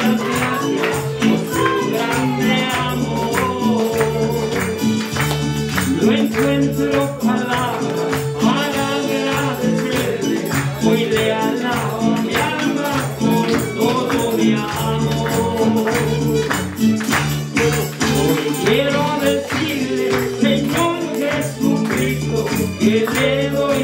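Spanish-language Christian worship song (alabanza) with a steady tambourine beat and singing, played loud over a church loudspeaker.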